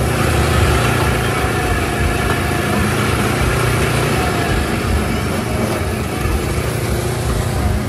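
Motor vehicle engines running steadily amid loud street noise.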